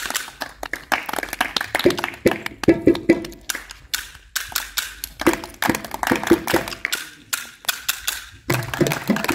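Hand percussion played by a folk performer: a fast, uneven run of sharp clacks and taps.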